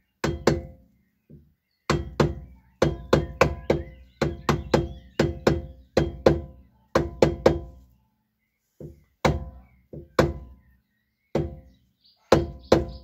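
Nylon mallet tapping a chilled wheel bearing into the front steering knuckle, starting it square in its bore. Sharp knocks, each with a short metallic ring, come two or three a second in short runs with brief pauses.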